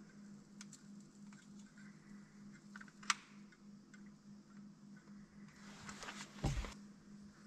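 Hand tools clicking and knocking against metal in a truck's front suspension: scattered small clicks, one sharp click about three seconds in, and a louder clatter with a dull thud near the end. A steady low hum runs underneath.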